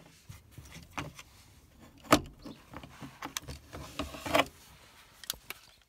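A string of irregular knocks and clicks of hard parts being handled inside a car's interior, with one sharp knock about two seconds in and a short scraping rattle a little past four seconds.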